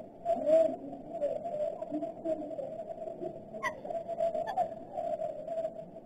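Dove cooing low, among the wavering calls of other birds, with a short sharper bird call about three and a half seconds in.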